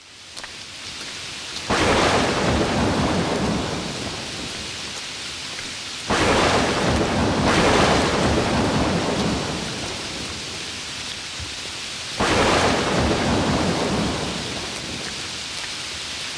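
Thunderstorm: rain falling steadily, with three rolls of thunder about five seconds apart, each starting suddenly and dying away over a few seconds.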